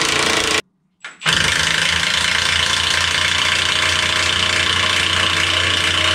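Cordless impact wrench running steadily, spinning the threaded rod of an internal coil-spring compressor as a front coil spring is worked into the control arm. The sound breaks off for a moment just after the start, then runs on unchanged.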